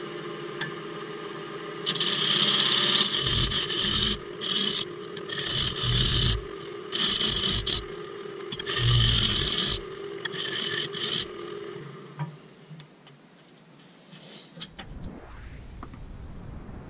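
Hand sanding of a spinning root-and-resin vase on a Nova DVR Saturn wood lathe: abrasive scratching against the turning wood and resin in several strokes over about ten seconds, over the steady hum of the lathe motor. The motor hum falls away about twelve seconds in.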